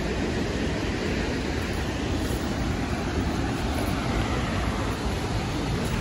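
Steady roar of a waterfall: an even, continuous rushing of falling water.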